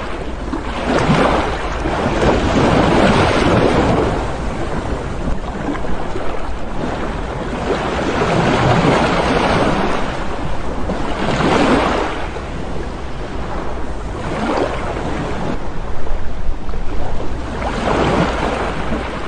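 Waves washing in on a shore, swelling and fading every few seconds, with wind rumbling on the microphone.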